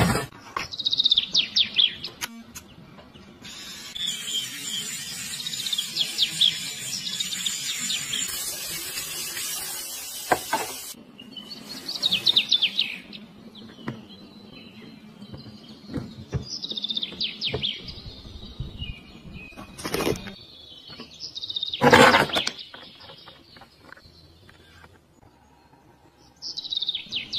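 Short clusters of high, bird-like chirps every few seconds, over a stretch of high rustling hiss and a few sharp clicks or clatters.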